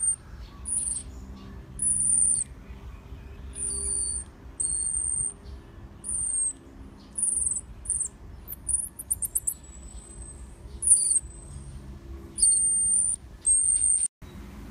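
Baby marmoset giving a string of very high-pitched, thin whistling calls, a dozen or so short ones about a second apart, with a quick trill of chirps about nine seconds in. A faint low hum runs underneath.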